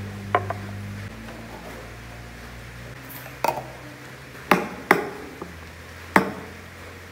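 Ceramic coffee cups and milk pitchers being set down on a hard counter: about six sharp knocks and clinks, over a low steady hum.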